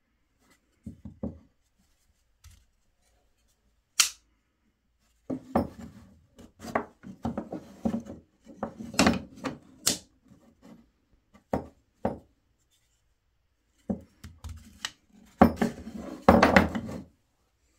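Handling and assembly sounds: irregular clicks, knocks and rubbing of small parts being worked by hand, with a single sharp click about four seconds in and busier clusters of handling sounds after it.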